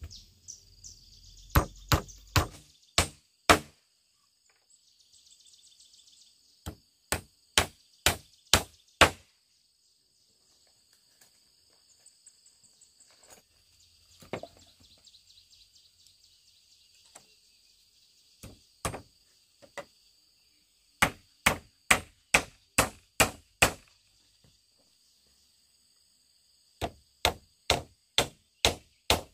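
Hammer blows on wooden planks, in quick runs of about five to eight strikes with pauses between, the way boards are nailed together into a panel.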